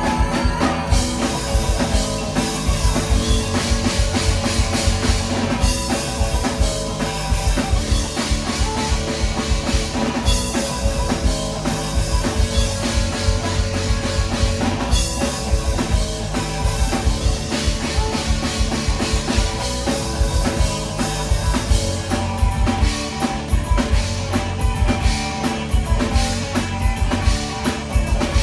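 A live rock band playing, with a full drum kit (bass drum and cymbals) driving the beat under sustained pitched instruments.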